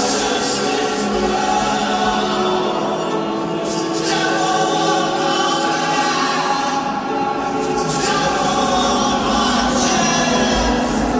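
Slow music with layered, choir-like singing over held tones.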